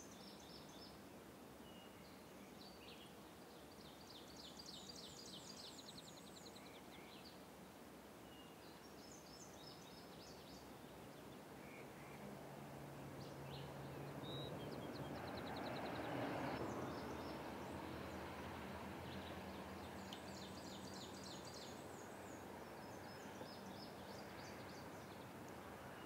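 Faint outdoor ambience with birdsong: a small bird repeats short, rapid trilled phrases every few seconds. Near the middle a low hum and a broad rush of noise swell and then fade back.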